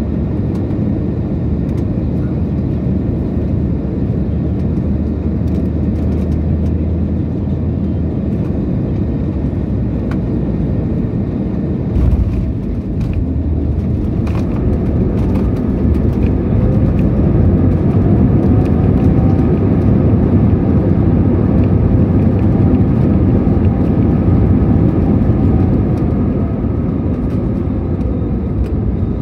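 Airliner cabin during landing: steady engine and airflow noise, a thump about twelve seconds in as the wheels touch down, then the engine noise swells with a whine that rises and later falls during the roll-out, easing off near the end.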